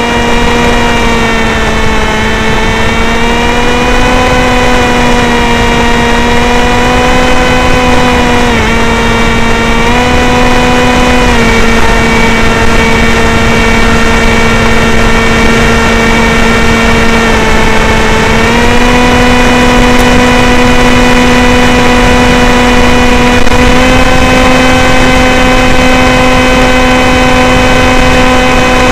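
Sky Shadow S800 flying wing's electric pusher motor and propeller in flight, heard from on board: a loud, steady whine that shifts slightly in pitch a few times, over a rush of wind noise.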